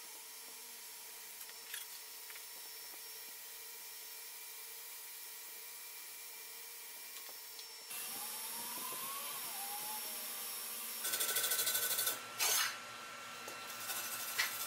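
TIG welding arc on stainless steel, a faint steady hum with a thin high whine, for about the first eight seconds. Near the end, loud scratchy bursts of a wire brush scrubbing the fresh weld.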